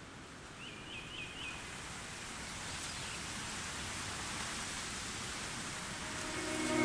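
Outdoor ambience: a steady rushing noise that swells slowly. A small bird chirps four times in quick succession about a second in. Music comes in near the end.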